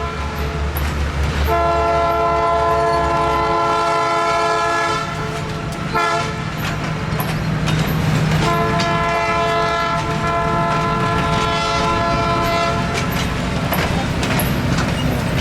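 Diesel locomotive of the Newport Dinner Train sounding its multi-note air horn: a long blast, a short one about six seconds in, then another long blast, the end of the long-long-short-long grade-crossing signal. Underneath, the diesel engine rumbles steadily and the wheels click on the rail joints.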